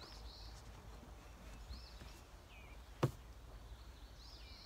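Birds chirping in short, high calls several times over a faint outdoor hum, with one sharp click about three seconds in.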